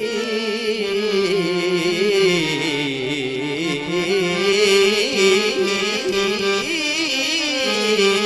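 Music: a traditional South Asian folk song with a wavering, gliding melody line.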